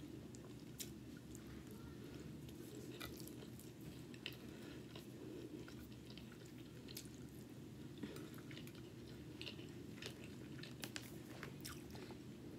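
Faint chewing of a mouthful of rice, baked salmon and asparagus, with scattered small mouth and utensil clicks over a low steady room hum.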